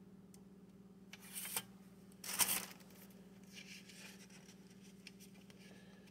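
A plastic CD jewel case and its paper insert booklet being handled: two short scraping rustles about a second apart, the second louder, then softer paper rustling as the booklet is taken out and unfolded.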